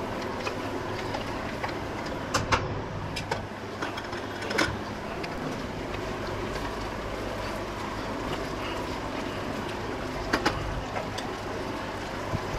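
A metal spoon stirring mutton curry in an aluminium pressure-cooker pot, giving a few sharp clinks against the pot: two close together about two and a half seconds in and two more later. Under them runs a steady kitchen hum.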